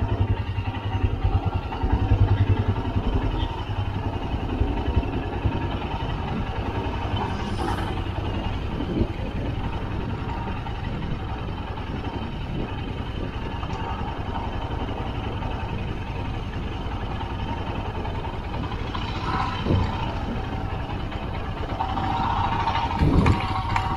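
Motorcycle running steadily as it is ridden along, a constant low rumble with no marked revving or gear changes.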